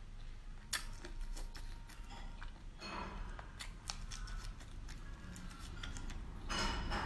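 Close-up eating of a raw prawn: many sharp clicks and crackles as the shell is bitten, with two louder, longer wet mouth sounds, about three seconds in and near the end.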